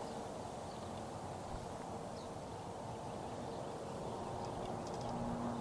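Quiet rural outdoor ambience: a steady low background hiss with a few faint, short bird chirps scattered through it.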